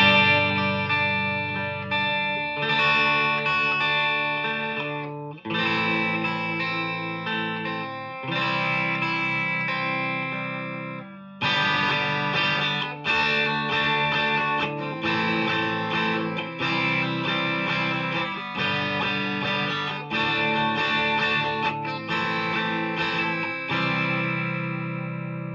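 PRS SE McCarty 594 Singlecut electric guitar, bridge humbucker split to single coil, played through a Marshall DSL-1 amp on its classic gain channel into a miked 2x12 cabinet. Overdriven chords are struck every second or two and left to ring, and the last one fades out near the end.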